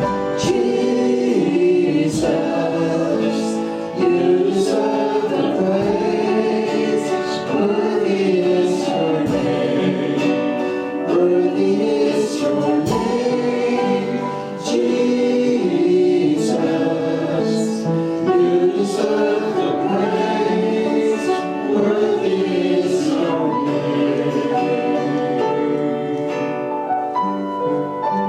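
Gospel worship music: a group of voices singing together over a band, with a regular beat of drum hits.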